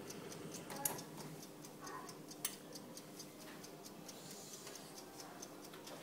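Rapid, even mechanical ticking like clockwork, over a low steady hum, with two sharp clicks about a second and a half apart.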